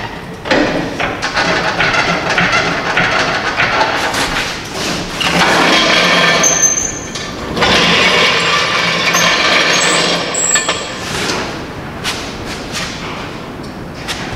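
A heavy steel workbench and a floor jack scraping and rolling on a concrete floor as the bench is shifted, with a couple of short high squeaks.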